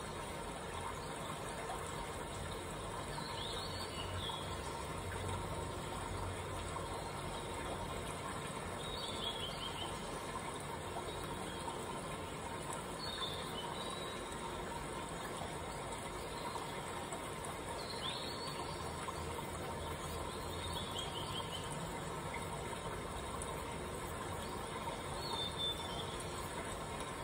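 A bird repeating a short call of a few quick falling high notes about every four to five seconds, over a steady background hiss.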